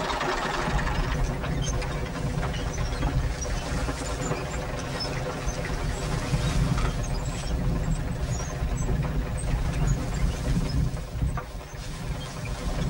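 A tractor engine running steadily at a constant speed.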